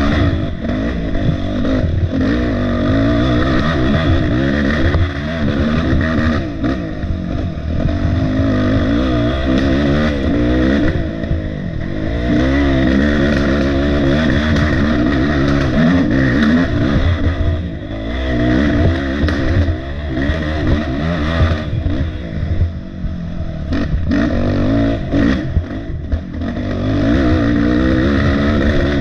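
Off-road dirt bike engine heard close up, revving up and down over and over as the rider throttles and shifts through the trail, with scattered knocks and rattles.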